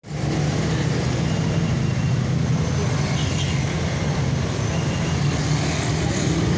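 Street traffic passing close by: cars, a minibus and motorcycles, with steady low engine noise.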